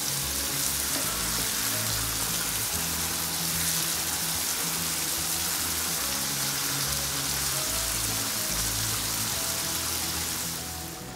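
Mushrooms, carrots and potatoes sizzling steadily in oil in a frying pan, over soft background music; the sizzle falls away near the end.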